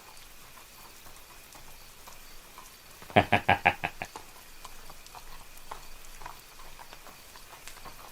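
A man's short, staccato laugh, about seven quick pulses, about three seconds in, followed by a few faint ticks.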